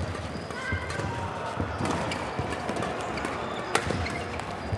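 Badminton rally on an indoor court: shoes squeak on the court surface, and a racket strikes the shuttlecock with one sharp crack about three-quarters of the way through. Voices in the hall run beneath.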